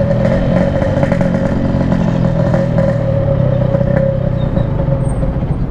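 Yamaha RX-King's single-cylinder two-stroke engine running at low, steady revs through a Packing Power PK3 aftermarket exhaust, with a light rattle over it. A steady higher tone runs with it and stops about five seconds in.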